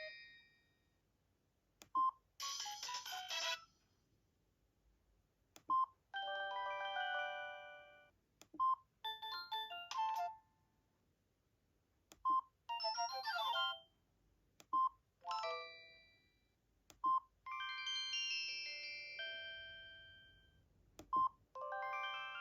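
Samsung SGH-E500 mobile phone ringtones played one after another: about seven short synthesized melody snippets, each only a second or a few seconds long, each preceded by a short beep, with brief silences between them.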